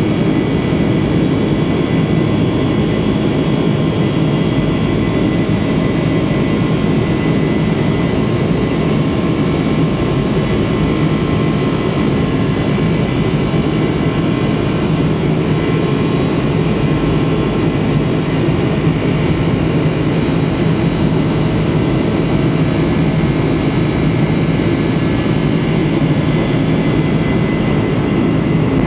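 Boeing 747-400 jet engines heard from inside the cabin beside the wing, a loud steady drone with a thin high whine over it, as the jet rolls along the ground for take-off.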